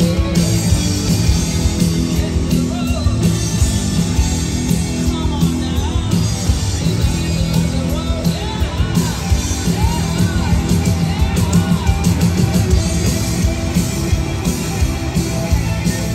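Rock band playing live through a stadium PA: electric guitars, bass and drums, with a woman singing lead, heard from within the crowd.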